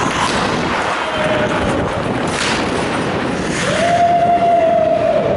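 Ice hockey play heard from a goalie's mask: a steady rush of skates carving on the ice, with sharp skate-stop scrapes about two and a half and three and a half seconds in. A steady mid-pitched tone sounds briefly about a second in and again, louder, for about two seconds from past the middle.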